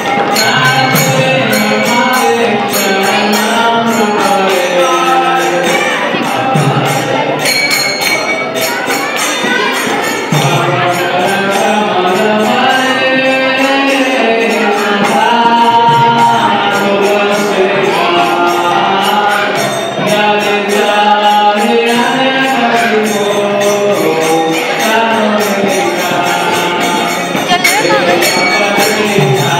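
Devotional kirtan: voices singing a chant over jingling metal percussion that keeps a steady beat.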